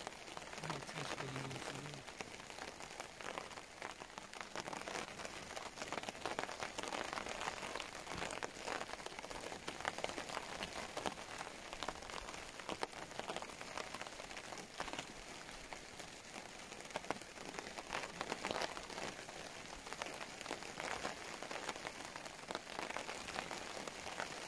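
Steady rain falling, an even hiss with many separate drop impacts ticking through it.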